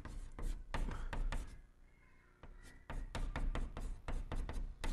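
Chalk tapping and scraping on a blackboard as Chinese characters are written: a quick run of short taps, a brief pause about two seconds in, then more taps.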